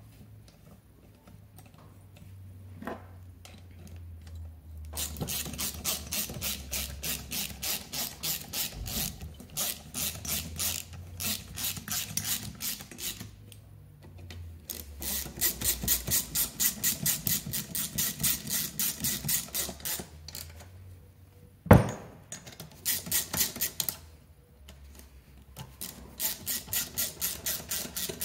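Ratchet wrench on a long extension turning the cylinder-head nuts of a Peugeot Vivacity 3 scooter engine: long runs of rapid pawl clicks, about two to three a second, with short pauses between runs. One sharp knock, the loudest sound, comes about three-quarters of the way through.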